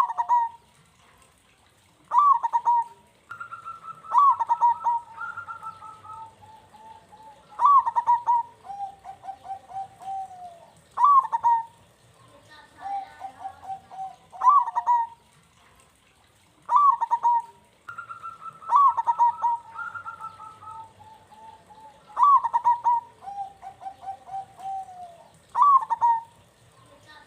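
Zebra dove (perkutut) cooing its song, a phrase about every three to four seconds. Each phrase is a sharp accented note followed by a quick run of rolling coo notes.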